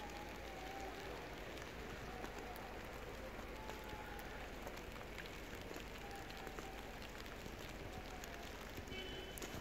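Steady outdoor hiss of a snowy town square during snowfall, with small scattered ticks and faint distant wavering calls.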